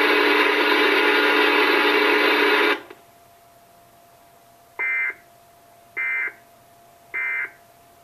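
A loud, harsh Emergency Alert System alert tone from a television speaker cuts off about three seconds in. After a short pause, three brief bursts of the EAS end-of-message data code chirp about a second apart, marking the end of the alert.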